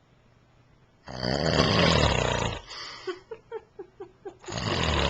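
A man snoring: a long, loud snore begins about a second in, followed by a quick run of short puffs, then another loud snore starts near the end.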